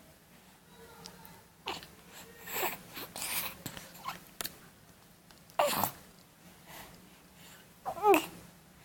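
A pet mouthing and nibbling at a hand, with a run of short snorts and puffs of breath. A short squeal near the end.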